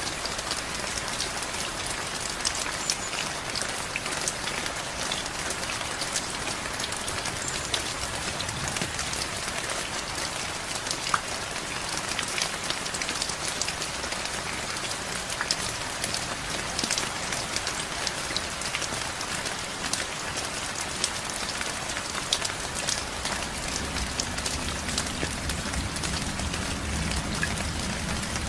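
Steady rain falling, with many separate drop hits heard as sharp ticks over a constant hiss. A low rumble joins in for the last few seconds.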